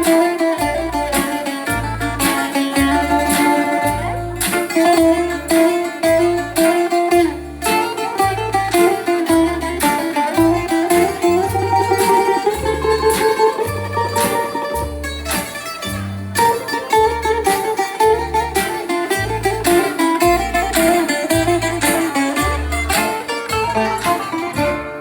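Bouzouki playing a hasapiko: a quick plucked melody over a steady low bass beat.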